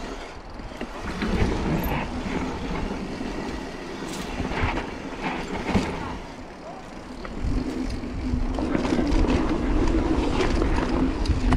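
Mountain bike rolling fast down a dirt singletrack: tyres running over the hardpack with scattered clatters and rattles as it hits bumps and roots, over a low rumble of wind on the camera microphone.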